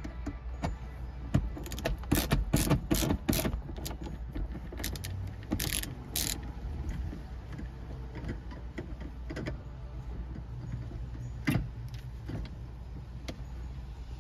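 T20 Torx driver turning a screw out of plastic interior trim: a quick run of sharp clicks a couple of seconds in, two short scrapes around six seconds, then scattered clicks, over a steady low hum.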